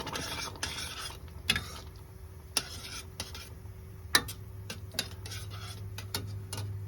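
Kitchen utensils and dishes being handled while a lunch is put together: a scraping rustle at first, then a series of sharp clicks and clinks, over a steady low hum.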